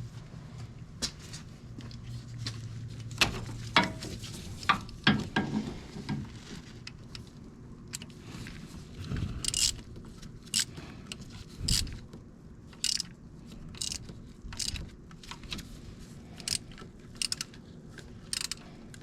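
Metal hand tools clinking and clanking on metal: a string of sharp, irregular clicks and knocks, some in quick clusters, over a low steady hum.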